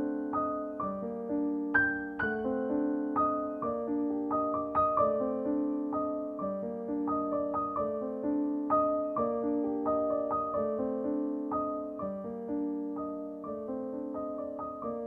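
Soft background piano music: gentle single notes and chords struck one after another and left to fade.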